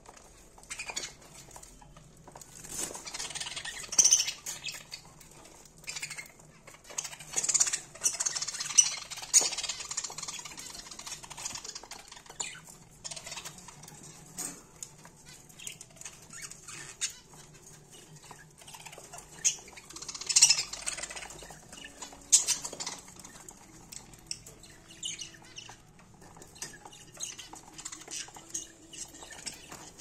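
A flock of budgerigars chirping and chattering in irregular bursts, with brief wing flutters.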